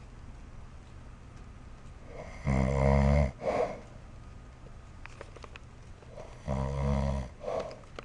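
A sleeping man snoring: two loud snores about four seconds apart, each lasting under a second and followed by a short exhale.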